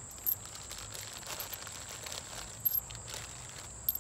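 Small plastic hardware bag crinkling as it is opened and handled, with a few short sharp clicks of the parts inside. Crickets chirp steadily in the background.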